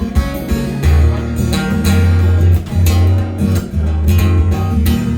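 Live music: guitar strumming chords over long, steady bass guitar notes in a regular rhythm.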